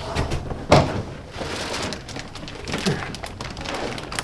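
A single thump, then the crackling and rustling of a clear plastic bag wrapped around a rack server as it is pulled and handled.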